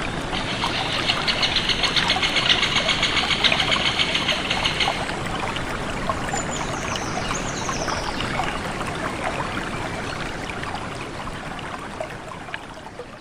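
A stream of water running steadily. A fast, pulsing high trill sounds over it for the first five seconds, and a high bird call falling in pitch comes about six to seven seconds in. The sound fades toward the end.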